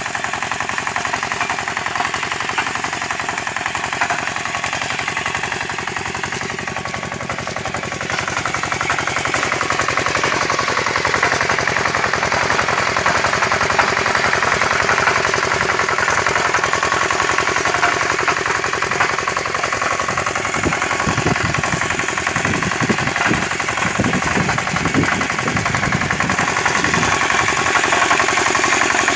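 Small engine of a homemade walk-behind power cultivator running steadily with a rapid, even beat while its tines work the soil; it gets a little louder about eight seconds in.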